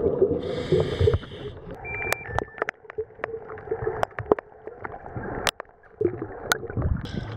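Scuba diver's underwater ascent as heard through the camera housing: gurgling bubbles of exhaled air with scattered sharp clicks and knocks. Near the end a brighter hiss comes in as the camera nears and breaks the surface.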